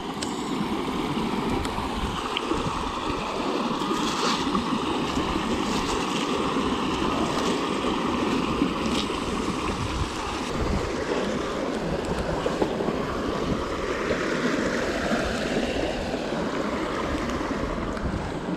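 Steady rush of flowing river water, with some wind on the microphone and a few faint knocks.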